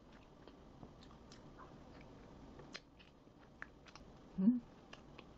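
Close-up eating sounds: an ice cream sandwich dipped in chocolate and bitten, with scattered small wet clicks and mouth smacks. About four and a half seconds in comes a brief hum from the eater, the loudest sound.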